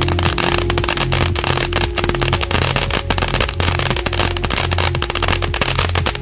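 A consumer firework going off with rapid, dense crackling and popping, many cracks a second without a break. Background music with a steady low beat plays under it.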